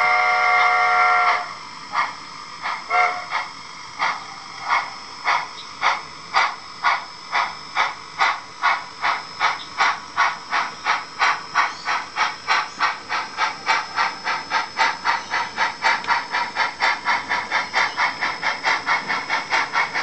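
Digital steam sound from the Tsunami DCC sound decoder in an HO-scale NSWGR Standard Goods locomotive, a DRGW K-class scheme reprogrammed to sound like a NSW loco. A chord steam whistle ends about a second in, with a brief short toot shortly after. Then exhaust chuffs follow that quicken steadily from under two a second to over three a second, over a faint steady hiss.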